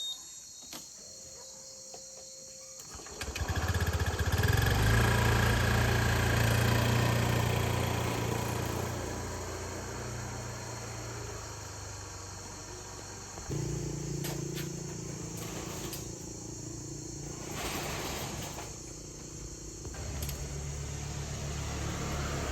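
A small engine starts about three seconds in and keeps running, its pitch shifting a couple of times as it goes.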